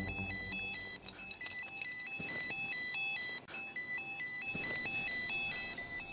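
Background music: a repeating electronic figure of short, high beeping notes stepping up and down.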